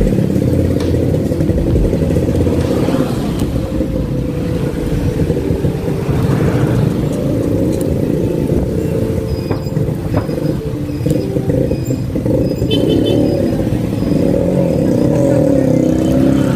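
Motorcycle engine running while riding, a steady, loud low rumble that grows a little louder near the end.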